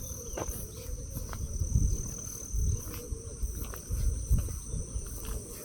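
Insects shrilling steadily in a continuous high-pitched drone, with an irregular low rumble underneath.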